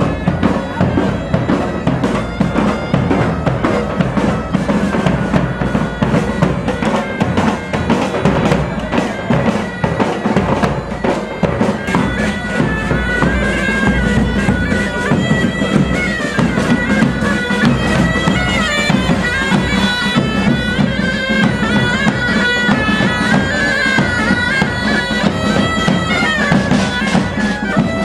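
Pipe band playing: bagpipes sounding a melody over their steady drone, with drums beating under them. The pipe melody stands out more clearly from about halfway through.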